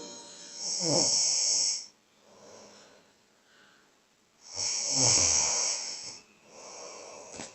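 A person snoring: two loud snores about four seconds apart, with quieter breathing between them.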